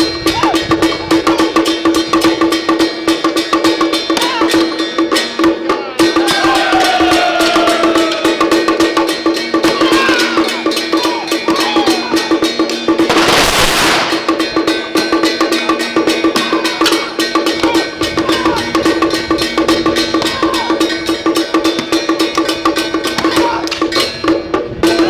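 Temple-procession drum-and-gong percussion accompanying a Song Jiang Zhen martial display: fast, dense strikes over a steady ringing metal tone, with one short loud crash about halfway through.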